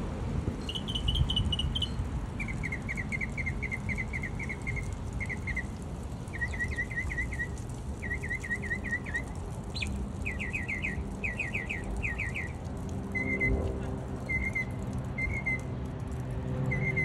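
Mockingbird singing: bursts of quick repeated notes, each phrase repeated several times before it switches to a different one, over a steady low rumble of road traffic.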